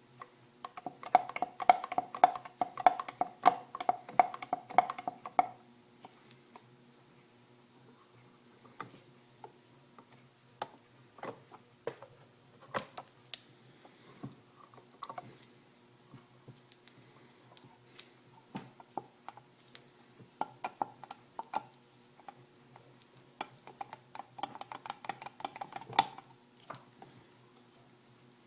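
Late-1960s 6 hp Evinrude outboard motor clunking: bursts of rapid metallic knocks with quieter gaps and scattered single clicks between them, the knock the owner traced to worn connecting rod bushings.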